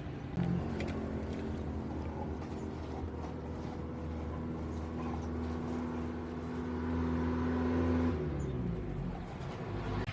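A motor running at a steady pitch, which winds down with a falling pitch about 8 seconds in.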